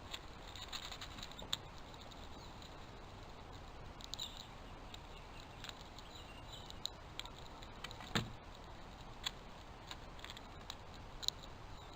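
Squirrels and Steller's jays foraging close to the camera: scattered light clicks and scratching, with one louder knock about eight seconds in.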